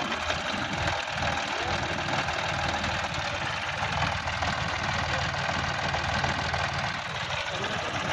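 Sonalika DI-50 RX tractor's diesel engine running steadily as the tractor creeps forward.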